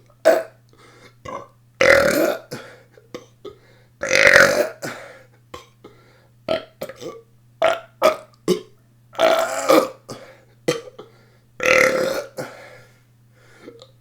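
A person belching deliberately over and over: four long, loud burps about 2, 4, 9½ and 12 seconds in, with many short burps between them.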